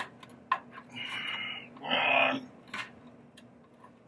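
Small plastic wiring-harness connectors being handled: a few light clicks and two short scraping, sliding sounds, the second one louder, about two seconds in.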